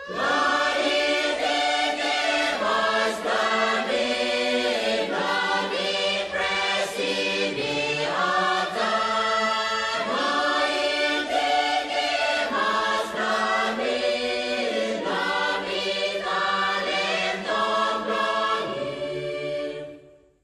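Background music: a choir singing in harmony. It starts suddenly and fades out near the end.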